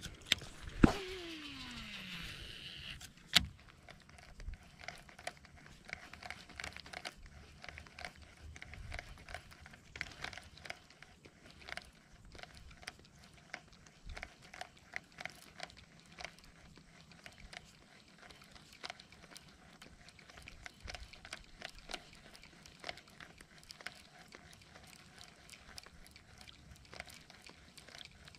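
A fishing cast: a sharp click, then a whine falling steadily in pitch for about a second and a half as the reel's spool spins with line running out, ended by a sharp snap. After that, many small irregular clicks and taps as the reel is cranked and the topwater walking bait is twitched back.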